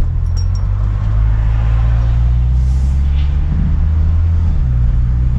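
A 2000 Toyota Celica GTS driving on a bumpy road: a steady low engine and road rumble whose pitch shifts around the middle, with a few faint clicks near the start. Its worn sway bar links have just been replaced, and the suspension rattle is mostly gone.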